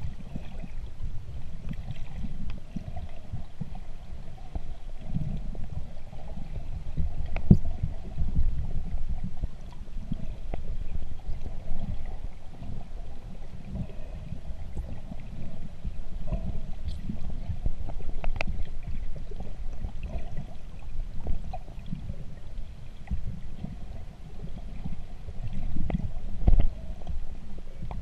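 Water moving around a camera held underwater while swimming: a muffled, irregular low rumble and swish, with a few sharp clicks scattered through.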